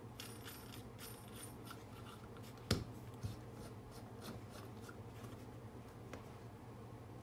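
Steel 5C collet block being handled on a cutting mat: small clicks and scrapes as the collet nut is turned and the stock seated, with one sharp knock a little under three seconds in and a lighter one just after, as the block is set down and turned over.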